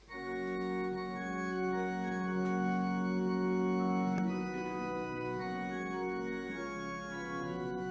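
Organ playing sustained, held chords, starting at once and changing chord about four seconds in: an instrumental passage between worship songs.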